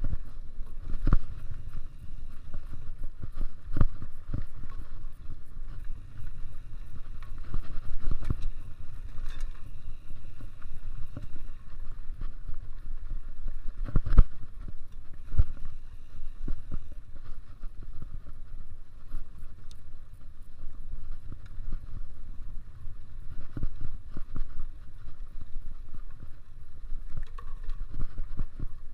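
Mountain bike being ridden over a dirt cross-country trail: a steady rumble from the tyres and frame, with sharp knocks and rattles as it hits bumps, the loudest about halfway through.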